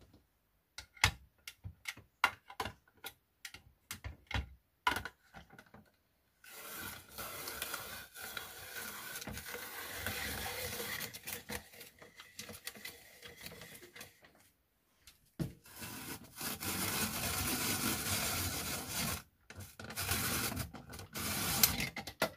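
Rotary drum vegetable slicer-grater turned by hand, slicing cucumber and then shredding carrot: a steady rasping rub in long stretches. A run of sharp knocks and clicks fills the first six seconds.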